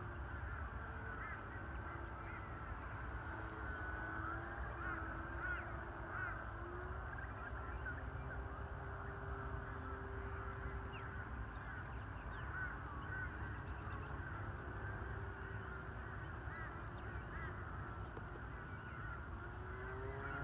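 E-flite T-28 Trojan RC plane's electric motor and three-blade propeller droning in flight, its pitch drifting slowly up and down as the plane circles, then rising and growing louder near the end as it comes closer. Low wind rumble on the microphone runs underneath.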